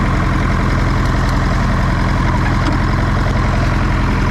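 Zetor 6711 tractor's diesel engine running steadily, with an even low beat.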